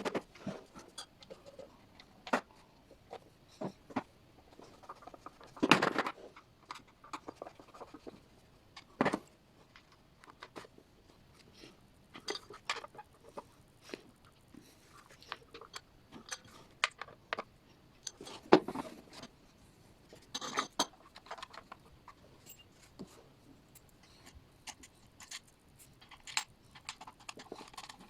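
Scattered clicks, taps and a few louder clunks of metal and plastic parts and tools being handled while a kitchen food waste disposer is put back together.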